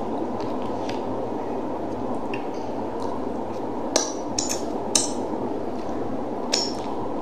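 Eating sounds from a person eating fish and rice with her fingers: a few short, sharp wet mouth smacks and clicks in the second half. These sit over a steady background hum.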